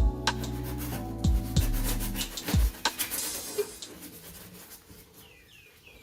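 Hip-hop backing music with deep sliding bass notes, which stops a little under halfway through. A faint rubbing, scraping noise follows.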